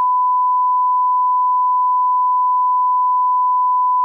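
Steady 1 kHz line-up reference tone, the continuous test tone laid under colour bars at the head of a video master for setting audio levels.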